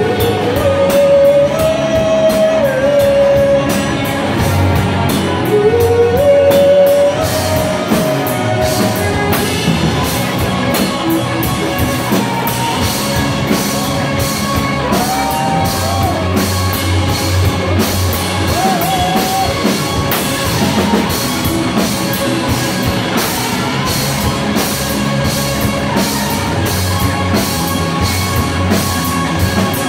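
Rock band playing loud and live: electric guitars, bass guitar and a busy drum kit, with a held, sliding melody line over the top during the first eight seconds or so.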